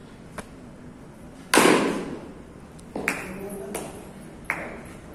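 A baseball bat striking a pitched ball about a second and a half in, the loudest sound, with a long fading tail. Three sharper knocks follow about three, four and four and a half seconds in, two of them with a brief metallic ring.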